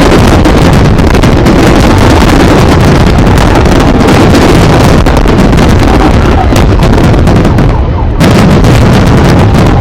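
Fireworks barrage: a dense, continuous run of rapid bangs and crackling, very loud throughout, with a brief lull about eight seconds in before it picks up again.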